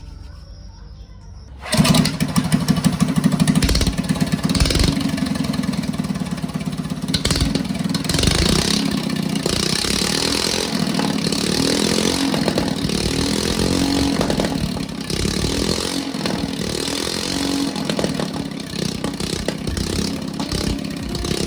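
A small go-kart engine comes in suddenly about two seconds in and keeps running, its speed surging up and down a little.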